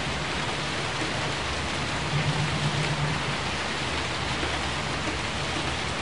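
Steady rain, an even hiss without a break.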